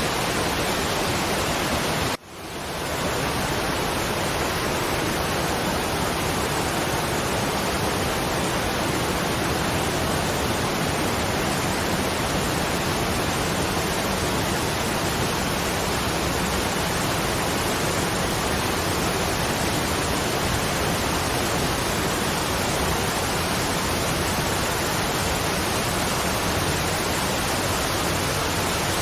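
Waterfall: a steady, even rush of falling water. About two seconds in it drops out abruptly and fades back in over about half a second.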